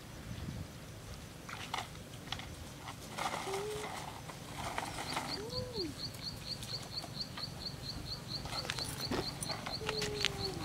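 Outdoor rural ambience: rustling steps through tall grass, a few short low animal calls, and from about halfway in a steady high ticking call repeating three or four times a second.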